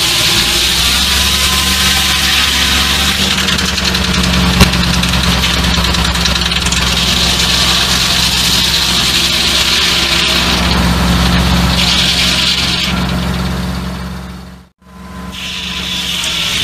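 Old Case tractor engine running steadily, driving a large circular sawmill blade cutting a walnut limb; the saw's high hiss of cutting comes and goes in stretches over the engine. A single sharp knock about four and a half seconds in, and near the end the sound fades out almost completely and comes back.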